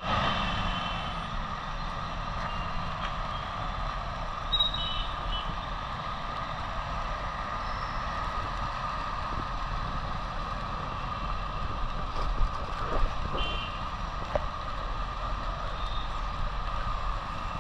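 Motorcycle riding through city traffic: steady engine and road noise, with a few short high-pitched beeps from other vehicles, one near the start, one about four seconds in and two more near the end.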